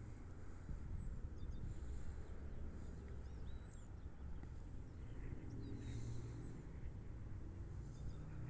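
Birds chirping with short, high calls scattered through, over a steady low rumble.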